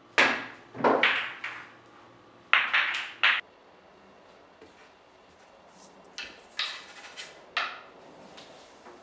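Pool shot: a sharp crack as the cue strikes the cue ball, then a run of hard clacks as balls hit each other and rebound off the cushions. Several fainter ball clicks follow a few seconds later.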